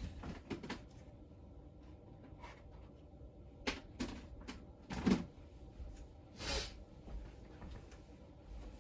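Scattered household knocks and clunks, the loudest about five seconds in, with a brief swish about six and a half seconds in: someone moving about the room fetching things, with the knocks of cupboard doors or drawers.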